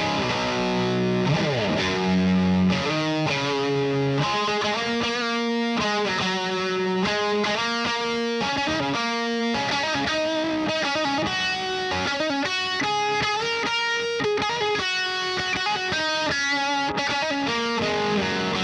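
Electric guitar, a Gibson Les Paul with P90 pickups, played through a Slamurai overdrive pedal into a Satellite Neutron EL84 tube amp: a slightly dark, lightly driven tone. Chords and single-note lines, with a slide down in pitch about a second in and faster runs of notes later on.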